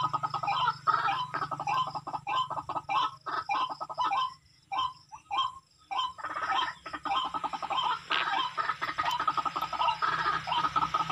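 Barred rail (tikling) call played through a small lure speaker: a fast, even series of short clucking notes, about three a second. The notes stop for about two seconds a little before the middle, then start again, over a steady low hum.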